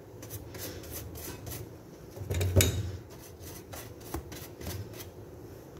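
Silicone pastry brush stroking and dabbing melted butter over freshly baked buns in a metal baking tray: soft repeated rubbing with light taps. There is one louder bump about two and a half seconds in.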